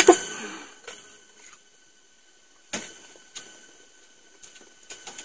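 Raw cucumbers being bitten and chewed: a handful of short, crisp crunches at irregular intervals, over a faint steady high whine.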